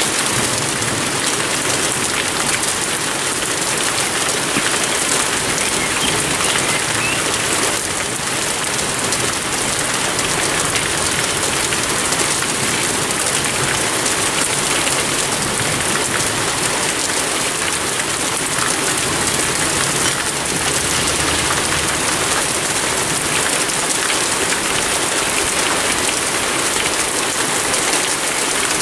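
Heavy rain pouring down in a steady, even hiss of drops.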